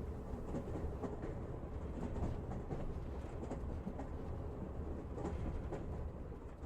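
Faint, steady low rumbling noise with scattered light clicks and crackles, with no melody or voice, as a song trails off to its end.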